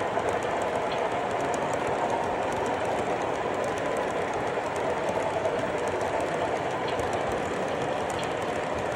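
A train running on rails: a steady rolling noise with faint scattered clicks from the wheels.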